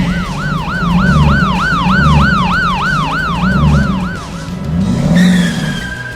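An emergency-vehicle siren wailing rapidly up and down, about three sweeps a second, over a low pulsing beat. The siren stops about four seconds in, and a short falling tone follows near the end.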